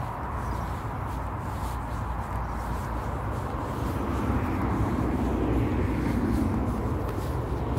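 Street traffic: a vehicle passes over a steady rumble of road noise, swelling about halfway through and easing off near the end.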